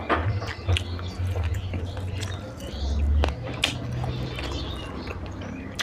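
Close-miked chewing and wet mouth smacking while eating curry with rice, with many sharp clicks and low thuds.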